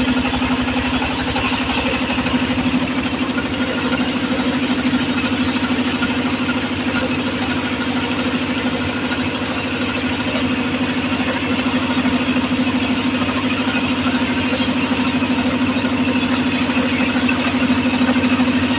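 Engine of a home-built circular sawmill running steadily, with a constant hum and even pulsing and no change in load.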